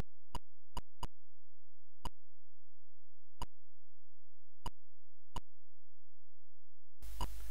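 Atari 8-bit keyclicks: a sharp, clean click for each key pressed, about seven at uneven gaps, as a command is typed in. Near the end a steady hiss comes in.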